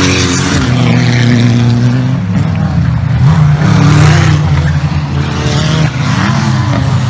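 Four-wheel-drive off-road race vehicles' engines running hard on a dirt course, the engine note rising and falling as they rev and accelerate.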